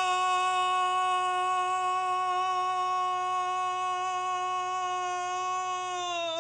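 A man's voice holding one long sung note, steady in pitch, that slides down and breaks off at the very end.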